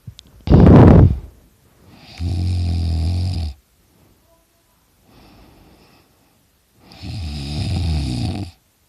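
A teenager snoring loudly with his mouth open: two long snoring breaths about five seconds apart, with a faint breath between them. A short burst of breath, the loudest sound here, comes about half a second in.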